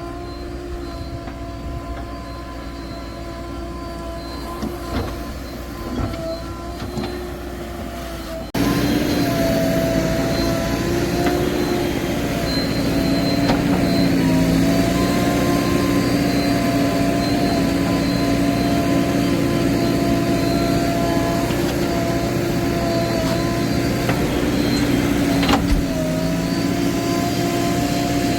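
Heavy machine's engine running at a steady speed. About eight seconds in, the sound jumps abruptly louder and fuller. A single sharp click comes near the end.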